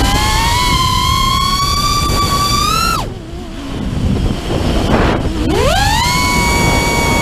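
FPV quadcopter's brushless motors and propellers whining, the pitch climbing slowly, then dropping sharply about three seconds in and gliding back up about two seconds later as the throttle is chopped and reapplied through a roll. Wind rushes over the onboard camera's microphone.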